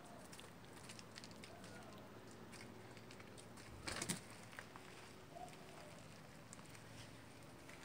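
A cat scrambling down a tree trunk and onto dry garden mulch: faint scattered clicks and crackles of claws and paws, with a brief louder scuffle about four seconds in as it reaches the ground.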